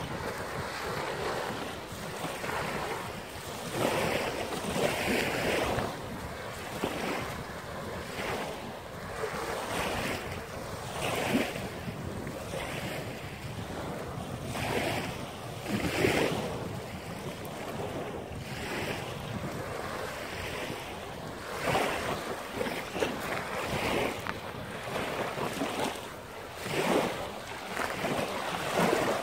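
Small waves breaking and washing up a sand-and-pebble shore, swelling every couple of seconds, with wind buffeting the microphone.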